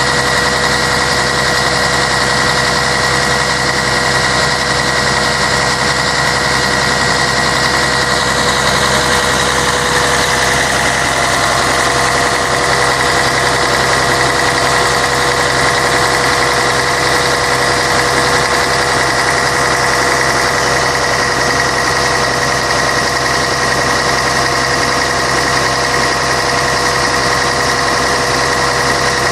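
Scania K113 bus's 11-litre straight-six diesel engine running steadily, with a constant whine riding over the engine sound.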